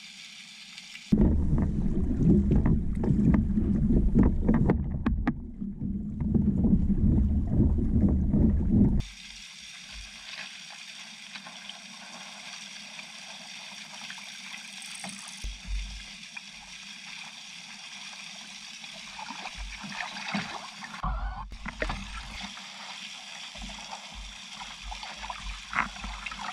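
Water sloshing and gurgling against the waterline of a Hobie Tandem Island sailing kayak's hull as it moves. It is loud and heavy for several seconds from about a second in, then drops to a quieter steady wash with occasional low knocks.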